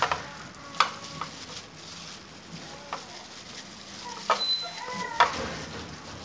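Plastic-gloved hand rubbing marinade into a whole raw chicken in a pan: wet squelching and glove crinkling, with several sharp slaps and knocks as the bird is pressed and turned.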